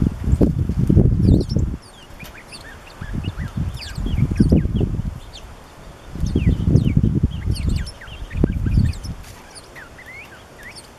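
An unidentified bird repeats short, sharp downslurred call notes, some like a northern cardinal's chip, while American tree sparrows call softly in the background. Four loud low rumbles, each a second or two long, come and go across the calls.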